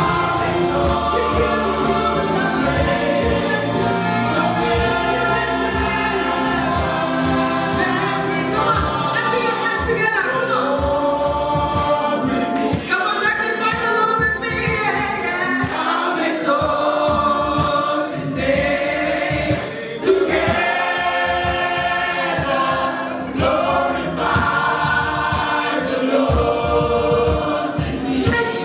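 Gospel choir singing a praise song live, with a slightly crackly sound from being recorded on the camera's own microphone.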